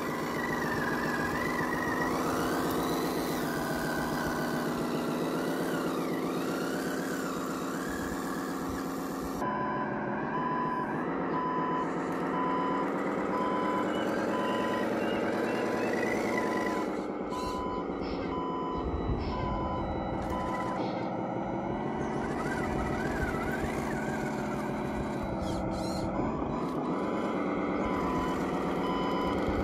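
Sound unit of a radio-controlled model Kamaz dump truck playing a simulated diesel engine note that rises and falls with the throttle. From about a third of the way in, a high reversing beeper sounds at even intervals over the engine.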